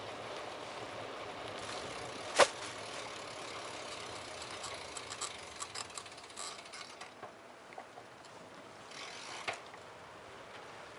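Bicycle-mounted riding noise: a steady hiss of road and street noise with scattered light rattles. One sharp click comes about two seconds in, a run of small clicks follows in the middle, and one more click comes near the end.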